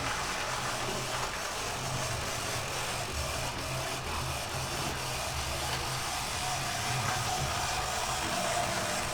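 OO gauge Oxford Rail Adams Radial 4-4-2T model locomotive running on the layout with a small freight train: a steady whirr of its small electric motor and gears with rumble of wheels on the track, a faint whine rising slightly near the end.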